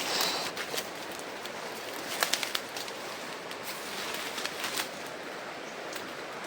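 Steady hiss of jungle background noise with scattered sharp crackles, like footsteps and brushing through dense undergrowth, in small clusters about two seconds in and again near five seconds. A brief bird call sounds right at the start.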